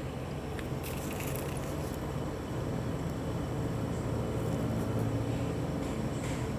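A steady low mechanical hum, with a few light clicks about a second in and again near the end.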